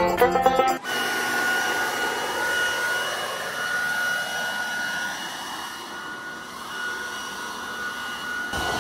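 Handheld leaf blower running steadily: a rush of air with a steady high whine, easing slightly about six seconds in. Banjo music cuts off about a second in and comes back near the end.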